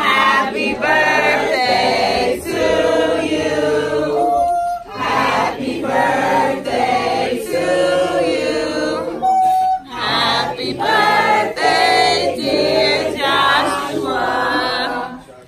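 A roomful of people singing together unaccompanied, in sung phrases with short breaks between them.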